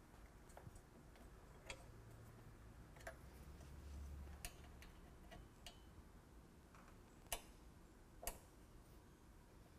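Faint, irregular metal clicks of a 4 mm Allen wrench and a 10 mm wrench working on a bolt and nut as the hardware is tightened, with two sharper clicks near the end.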